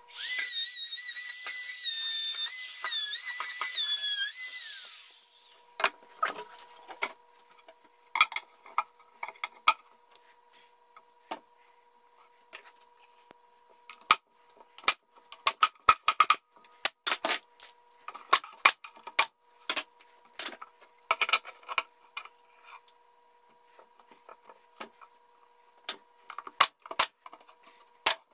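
An electric trim router whines at high speed, its pitch dipping as it cuts wood, then winds down and stops about five seconds in. After that, a pneumatic staple gun fires a string of sharp shots into the pine boards, with knocks of the wood being handled between them.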